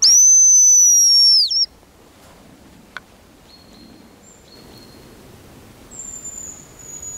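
A hazel grouse decoy whistle blown close: one loud, very high, thin whistle lasting about a second and a half, falling slightly and ending in a short dip. Fainter high thin whistles follow, one about three and a half seconds in and another near the end.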